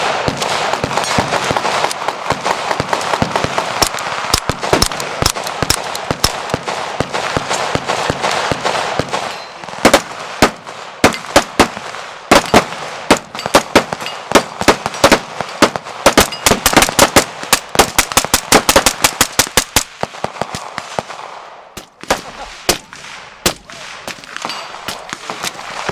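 Gunfire on a busy shooting range: many guns firing, with overlapping shots early on, then rapid, evenly spaced strings of shots from about ten to twenty seconds in, and scattered single shots near the end.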